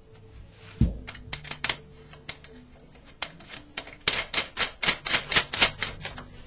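Banjo head and tension hoop being fitted onto the banjo pot by hand: a dull thump just under a second in, scattered clicks, then a quick run of sharp clicks and taps, about six a second, from about 4 to 6 seconds in.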